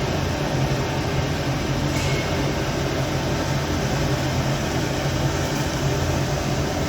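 Circuit board dismantling machine running steadily: a continuous mechanical noise with a low hum underneath.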